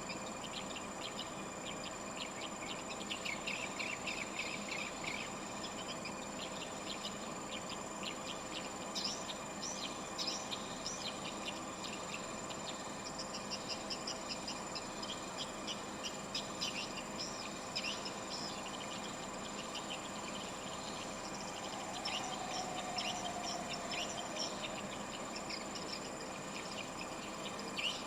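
Swiftlets twittering: bunches of rapid, high chirps that come and go, over a steady high-pitched whine.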